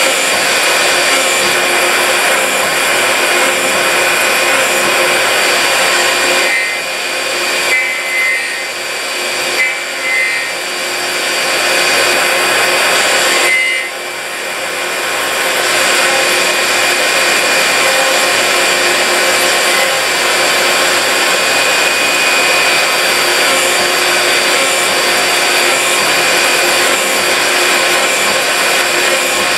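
Swiss-type CNC lathe turning a banjo tension shoe from round brass bar stock under a flood of cutting oil: a steady machine whir and hiss with faint high tones. It eases off for several seconds before the middle, where a few short high tones sound.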